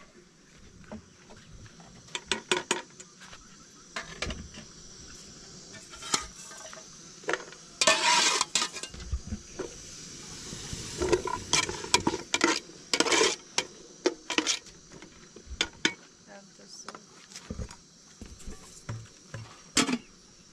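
Metal cookware clattering as pots, lids and a ladle are handled, with chopped onions sizzling in oil in a metal pot. A short loud burst of hiss comes about eight seconds in, and the sizzle swells for a few seconds soon after.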